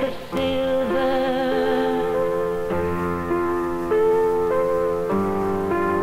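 Music from a song recording: long held notes that shift pitch every second or so, some wavering with vibrato, over a keyboard-like accompaniment.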